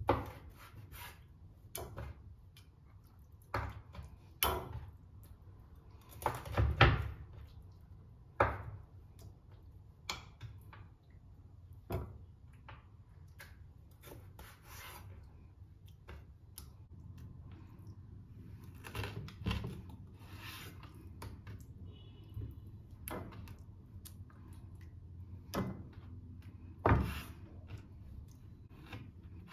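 Meat cleaver chopping raw chicken on a wooden cutting board: about a dozen sharp chops at uneven intervals, with softer handling sounds of the meat between them.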